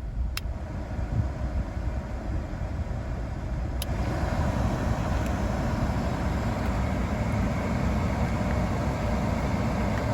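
A 2013 Hyundai Veloster's climate-control blower fan blowing air over the idling engine, working again on a replacement switch wired in after the controller burned out. There are two sharp clicks, one near the start and one about four seconds in, and after the second click the rushing air gets louder.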